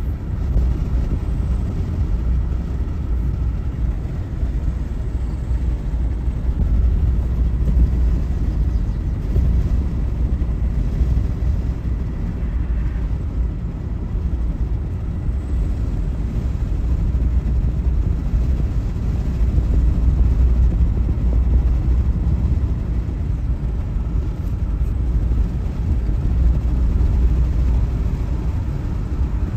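Steady low rumble of a car driving on a paved road, heard from inside the car: tyre and road noise with the engine underneath.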